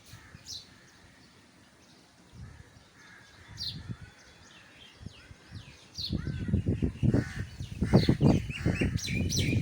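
Wild birds chirping and calling, short high notes scattered throughout. About six seconds in, a loud low rumble begins and comes in uneven surges beneath the birds.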